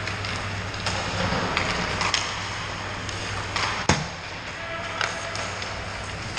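Ice hockey rink sounds: skates scraping and sticks and pucks clacking on the ice, with one sharp crack about four seconds in, over a steady low hum.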